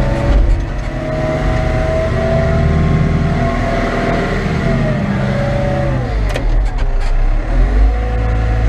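Caterpillar 924F wheel loader's diesel engine revving as it works: the pitch climbs and holds high, drops about six seconds in, then rises again near the end. A few short knocks come as the revs fall.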